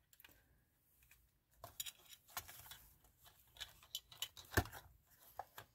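Plastic housing parts of a camera flash handled and turned over by hand: scattered light clicks and rustles, the sharpest click about four and a half seconds in.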